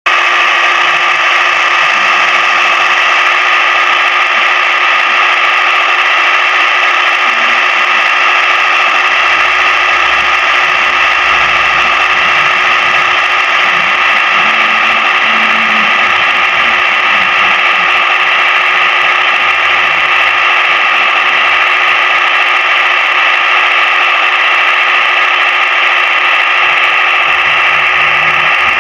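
Steady, high-pitched motor drone that holds one pitch without revving or changing.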